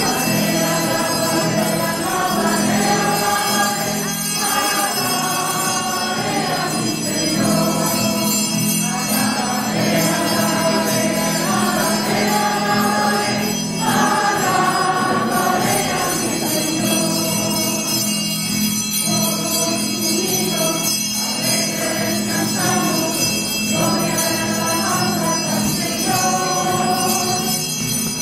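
Choir singing a church hymn in phrases over a steady low held accompaniment.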